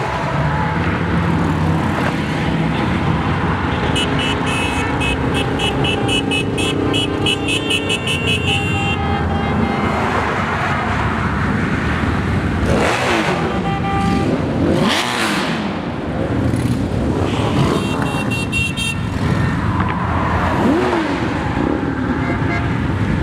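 A long procession of motorcycles riding past, their engines making a steady din, with single bikes rising and falling in pitch as they go by. Twice a rapid, high pulsing beep cuts through, about four seconds in and again around eighteen seconds.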